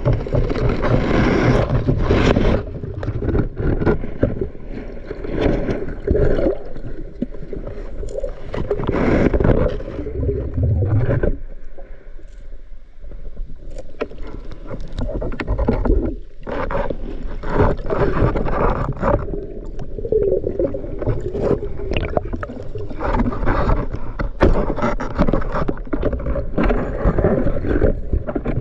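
Water sloshing and gurgling close to the microphone, with scattered knocks and scrapes.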